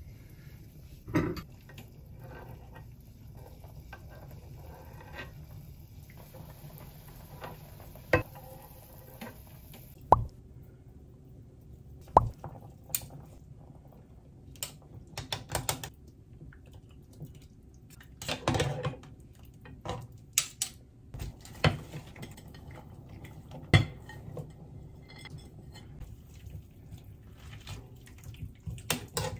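Metal spoons clinking, knocking and scraping against the inside of a saucepan while soup ingredients are stirred, in scattered sharp taps. For the first several seconds broth bubbles at a boil in the pot.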